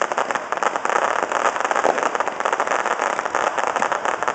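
Aerial fireworks crackling: a dense, continuous run of rapid small pops, with a few louder cracks among them.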